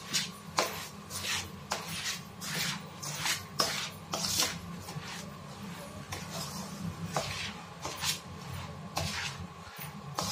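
A spoon scraping and clinking against a stainless steel bowl while sev coated in jaggery syrup is stirred, with irregular knocks about once or twice a second.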